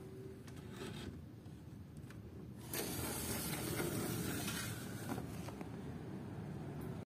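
Faint, steady hiss and hum of distant city ambience heard from a hillside window, growing louder and brighter about three seconds in.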